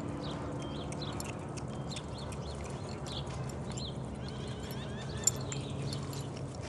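A Pony of the Americas jogging on arena dirt, its hooves clip-clopping softly, with one sharp click about five seconds in.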